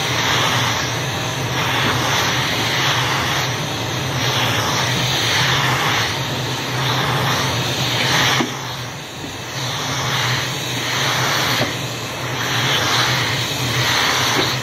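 MF338M book vacuum cleaner running steadily with a flat brush nozzle drawn across the tops of books. The suction hiss swells and fades about once a second with the strokes of the nozzle over the page edges.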